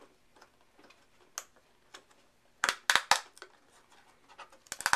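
Fingers working at the flap of a small paperboard product box, making a few sharp clicks and scratches: a quick cluster about two and a half to three seconds in and another near the end.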